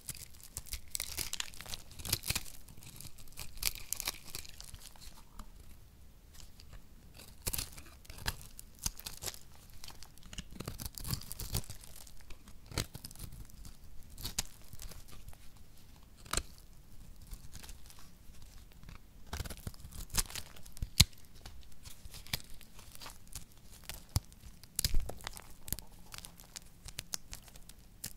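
Thin plate of dry soap being cut with a blade and snapped apart by hand: irregular crisp cracks and crackling, with two louder sharp snaps in the last third.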